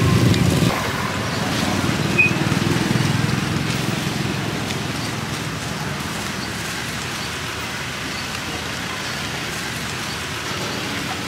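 Steady street traffic noise, with a louder engine rumble that drops away within the first second and a short sharp click about two seconds in.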